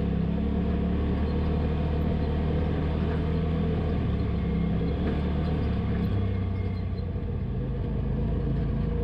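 Polaris RZR Pro XP side-by-side's engine running steadily while the machine drives along a trail, its pitch shifting a little about six seconds in.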